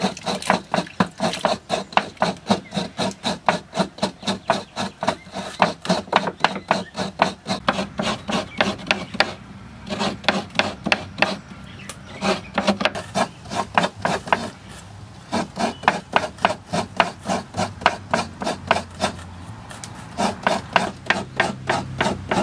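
Coconut being scraped on a hand-cranked coconut scraper: rhythmic rasping strokes, about three a second, with a few brief pauses.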